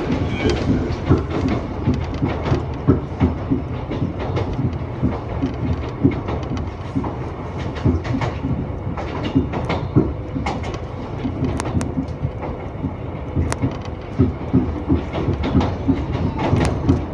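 Iga Railway ex-Tokyu electric railcar running, heard from on board: a steady rumble of wheels and running gear with frequent irregular clicks and knocks from the rails, and a faint steady whine that comes in about two-thirds of the way through.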